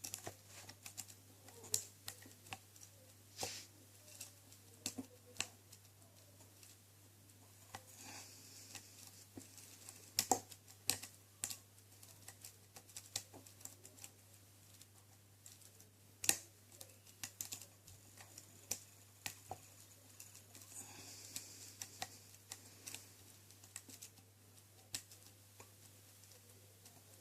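Faint, irregular metallic clicks and light scraping of a lock pick and tension wrench working the pin stack inside an ASSA Ruko 2 padlock, which has spool pins and a countermilled core.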